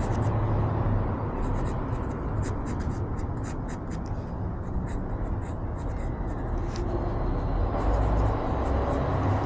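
Pencil scratching on cold-press watercolour paper in many short, quick sketching strokes, over a steady low rumble.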